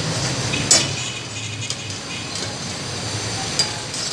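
Metal ladle clinking and scraping against a steel karahi wok as lamb curry is stirred: one sharp clink under a second in and lighter knocks later, over a steady low rumble.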